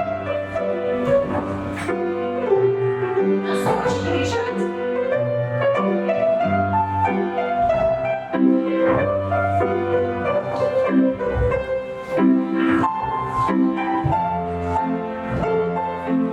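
Piano playing a rhythmic dance tune for a folk-dance barre exercise. Several sharp knocks sound over the music, most clearly around four seconds in and again around thirteen seconds in.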